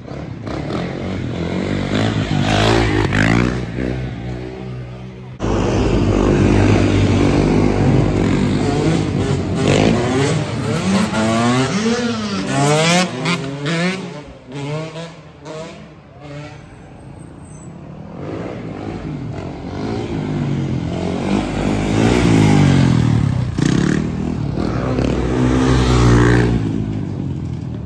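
Motorbike engines revving, their pitch rising and falling again and again, with a sudden jump in loudness about five seconds in.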